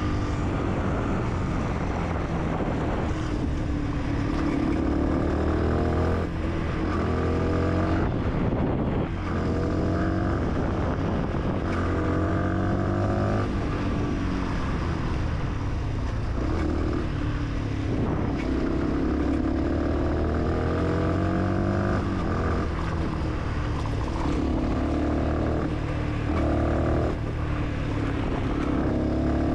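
125 cc Fantic supermoto's single-cylinder engine under way, its pitch climbing and then dropping again every few seconds as the rider accelerates and shifts through the gears.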